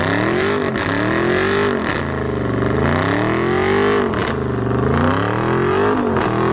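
Dodge Charger Scat Pack's 392 (6.4-litre) Hemi V8 revving hard during a burnout, the revs climbing and dropping about four times while the rear tyre spins and smokes.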